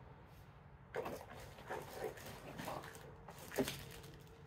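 Clear plastic bag rustling and crinkling in scattered short bursts as a bagged mini chainsaw is lifted out of its cardboard box, with the sharpest crinkle about three and a half seconds in.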